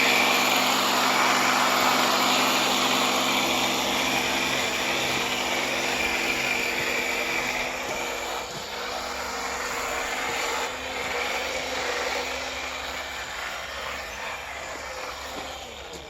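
Small 320 psi pressure washer running on its rinse setting: a steady pump-motor hum under the hiss of the water spray. It gradually gets quieter, and the motor hum fades out near the end.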